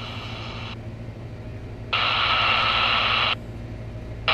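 Retekess V111 shortwave radio scanning the band: hiss of static from its speaker that switches on and off in blocks of about a second and a half, with short quieter gaps between them as the scan steps on, over a steady low hum.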